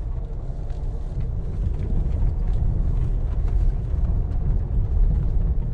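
Land Rover Discovery Sport climbing a dirt and gravel track: a steady low rumble of engine and tyres heard inside the cabin, growing a little louder about two seconds in.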